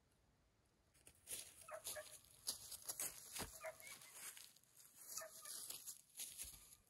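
Footsteps crunching irregularly over dry grass and fallen leaves, with a few brief pitched sounds among them.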